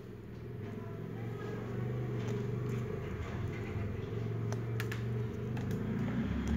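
A low, steady mechanical hum that grows a little louder over the first couple of seconds, with a few faint light clicks from pliers and wires being handled.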